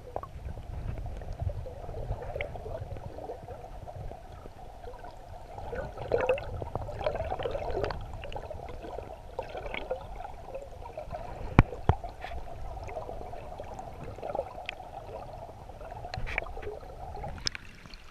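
Muffled gurgling and rushing of river current heard through a camera held underwater, with scattered clicks and one sharp knock about two-thirds of the way through.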